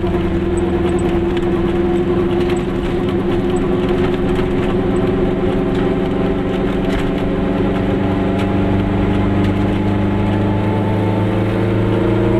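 A car's engine running as it drives slowly, heard from inside the cabin with road noise: a steady engine hum whose pitch rises slightly near the end as the car speeds up.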